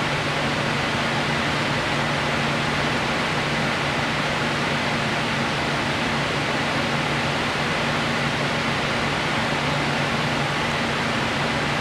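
Steady hiss with a low hum underneath; no distinct events.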